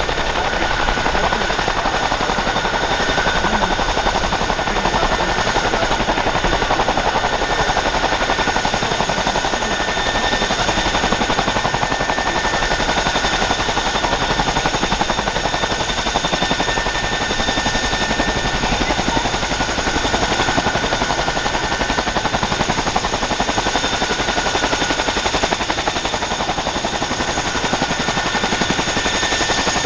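Boeing CH-47F Chinook tandem-rotor helicopter running on the ground with both rotors turning: a rapid, steady blade chop over the high whine of its Honeywell T55-GA-714A turboshaft engines.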